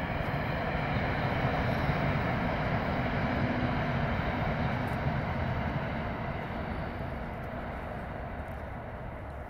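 A train passing on a nearby rail line: a steady rumble that is loudest about two seconds in and slowly fades away.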